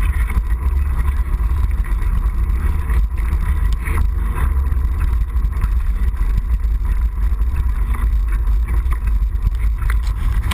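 Mountain bike rolling along a wet paved road: a steady low rumble of wind buffeting the handlebar-mounted camera, with the hiss of tyres on wet tarmac and small rattles of the bike.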